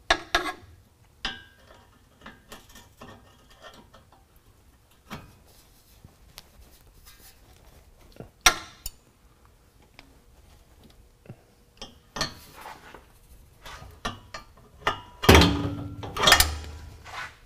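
Channel-lock pliers and steel exhaust parts clinking and knocking as rubber exhaust isolators are worked loose from their hanger rods. Scattered light clicks, a sharper clank about halfway, and the loudest clanks and a thump near the end.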